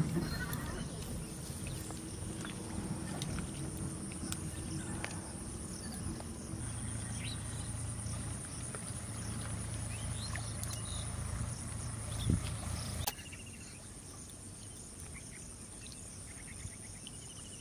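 Insects chirring steadily in one high-pitched drone, with a few faint small clicks. A low rumble underneath drops away suddenly about thirteen seconds in.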